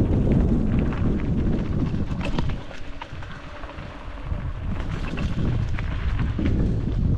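Wind buffeting the camera microphone while riding a hybrid bicycle without suspension down a dirt trail, with scattered clicks and rattles from the bike over the rough ground. The wind rumble eases about two and a half seconds in and builds again near the end.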